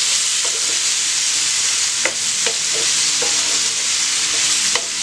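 Quartered fresh figs sizzling in ghee in a nonstick pan, with a steady frying hiss. A wooden spoon stirs them, giving irregular scrapes and knocks against the pan, a few of them louder about two seconds in and near the end.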